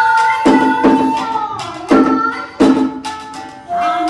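1 shaku 8 sun shakuhachi holding a long note that bends down, then starting a new note near the end, over a folk-song accompaniment track with four drum strikes.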